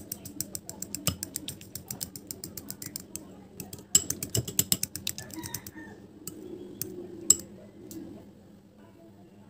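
Fork beating raw eggs in a glass bowl, its tines clicking rapidly against the glass in two quick bouts, then a few scattered taps that stop about eight seconds in.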